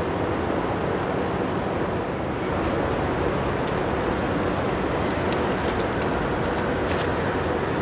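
Steady rumble and rush of the ferry Mega Andrea's engines and wash as she moves past, mixed with wind on the microphone. The sound grows slightly louder a couple of seconds in, and a few faint ticks follow.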